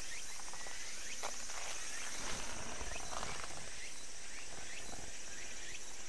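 Steady high-pitched insect chorus, a fine rapid trill, with faint short chirps repeating over it.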